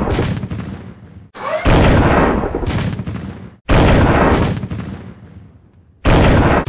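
Tank cannon shots as sound effects: three loud blasts about two seconds apart, each dying away in a long rumble.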